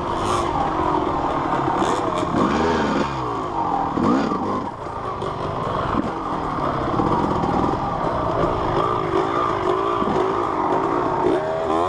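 Yamaha YZ250 single-cylinder two-stroke dirt bike engine revving up and down over and over as the throttle is worked on a rough trail, its pitch rising and falling every second or so.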